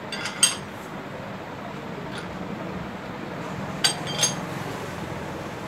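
A steel chuck key or bar clinks against the iron chuck of a stopped lathe as it is worked at the chuck, with short ringing metallic clinks: two just after the start and two more about four seconds in, over a steady low hum.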